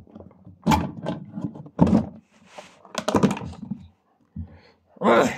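A child's voice making short wordless vocal noises in four or five separate bursts, with a few sharp knocks about three seconds in.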